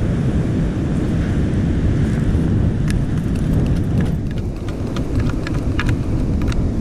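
Strong wind buffeting the microphone in a steady low rumble. From about three seconds in it is joined by many short gritty clicks: sand, shells and small rocks rattling in a sand scoop as the target is dug out.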